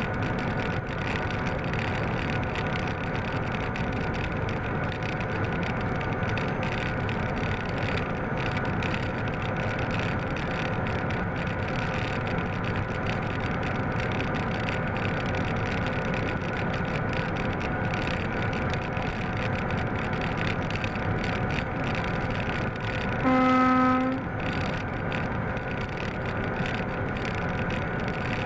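Class 750 'brejlovec' diesel locomotive running steadily, heard from its cab: a continuous engine drone with several held tones over rail noise. About 23 s in, a single horn blast of about a second.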